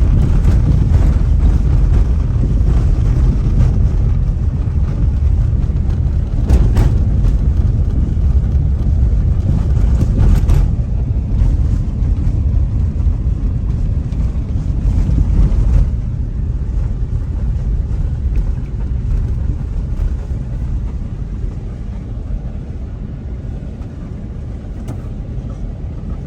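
Car driving on a road: a steady low rumble of tyres and engine with wind noise on the microphone, easing off about sixteen seconds in.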